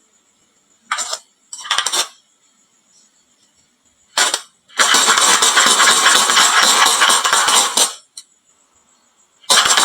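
Marbles clattering down a wooden marble-run slope into toy trucks: short rattles about a second in, just after and at about four seconds, then a dense clatter of about three seconds, and another starting near the end.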